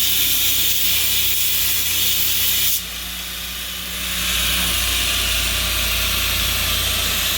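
Electric belt grinder running while steel is ground against the belt, giving a steady hiss over the motor hum. About three seconds in the grinding noise drops away, then builds back up a second or so later.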